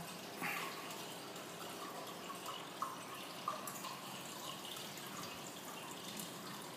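Aquarium water trickling from the tank's pump and filter outlets: a steady watery hiss with small, irregular drips and splashes.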